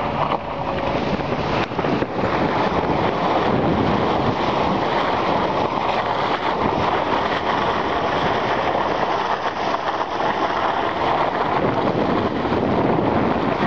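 Off-road 4x4 driving along a snowy forest track, heard from inside the vehicle: steady engine and tyre noise.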